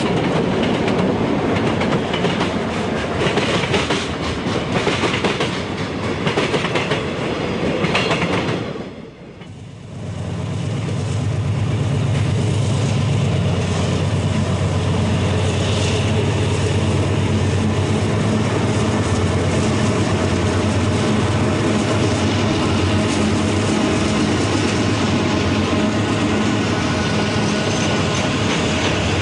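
A freight train rolling past, its wheels clattering over the rail joints. After a brief dip about nine seconds in, a Southern Pacific GE wide-cab diesel locomotive passes with a steady low engine drone, followed by loaded hopper cars rolling by.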